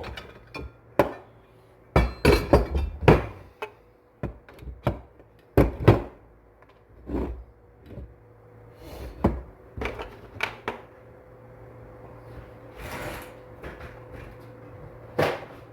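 Irregular knocks and clatters of hand tools and metal chainsaw engine parts being handled and set down during a teardown, with a longer scraping rustle near the end.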